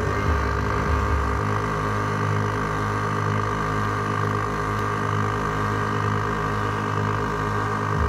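Air-suspension compressor switching on suddenly and running steadily with an even, rapid mechanical pulsing, filling the system's air tank.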